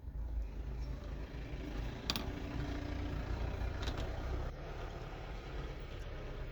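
Low rumbling background noise that swells and then eases, with two sharp clicks about two and four seconds in.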